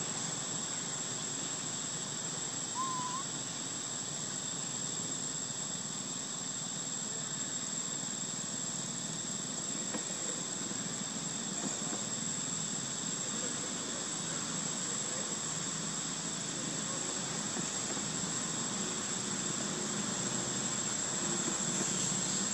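Insects giving a steady, unbroken high-pitched drone over a constant hiss. A short rising chirp sounds once, about three seconds in.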